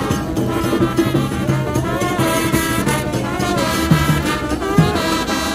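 Brass-band music, with trumpets and trombones playing over a steady beat.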